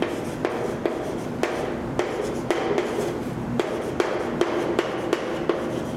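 Chalk on a chalkboard as words are written: a string of sharp, irregular taps, about two or three a second, with light scratching between them.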